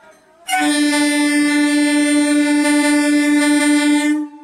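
Electric local train's air horn: one long steady blast at a single pitch, starting about half a second in and cutting off shortly before the end, a warning before the train departs.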